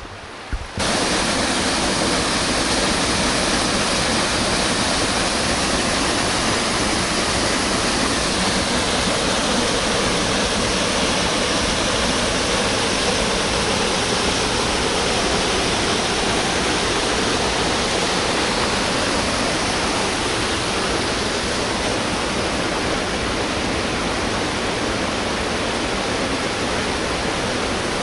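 Waterfall: a loud, steady rush of falling water that cuts in suddenly about a second in and holds unchanged.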